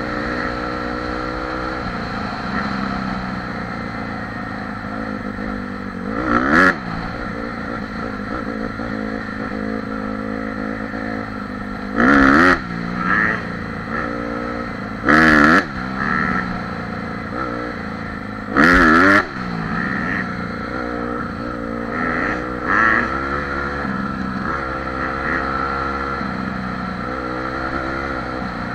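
Honda CRF dirt bike's four-stroke engine running steadily while riding, its pitch swinging up and down as the throttle is worked. There are four brief, much louder bursts: at about six, twelve, fifteen and nineteen seconds in.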